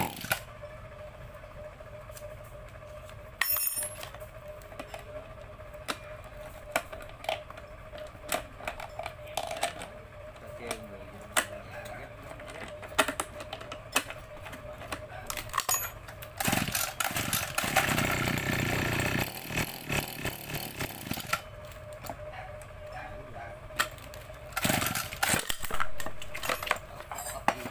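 Metal hand tools clinking and knocking against a small sprayer engine's casing as it is taken apart and turned over, many short clicks with a louder noisy stretch of a couple of seconds about two-thirds of the way in, over a faint steady hum.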